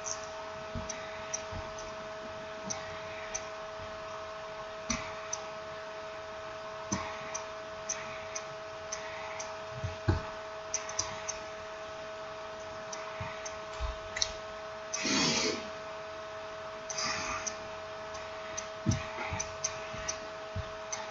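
Light, scattered clicks and taps of small parts and tools being handled during a smartphone reassembly, with a brief scraping rustle about fifteen seconds in, over a steady electrical hum.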